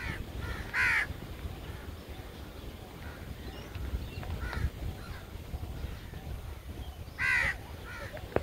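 Crows cawing: two loud, harsh caws about six seconds apart, with a few fainter calls between them. Wind rumbles on the microphone throughout.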